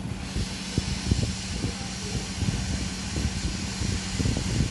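Hot-air SMD rework station blowing a steady hiss over a low, uneven rumble, heating a BIOS flash chip to desolder it from a motherboard.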